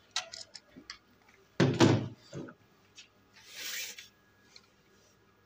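Handling noise from pliers and electrical wires being worked at a switchboard: a few small clicks, then a louder knock near two seconds in and a short hiss near four seconds.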